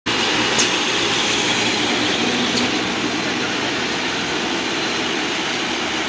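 Silage round baler-wrapper running with chopped green forage on its feed conveyor: a steady mechanical clatter and hum, with a couple of faint sharp ticks in the first few seconds.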